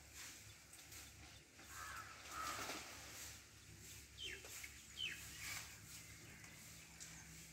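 Faint rustling of leaves and branches as a wild Asian elephant feeds with its head in the bushes, with two short descending bird calls about four and five seconds in.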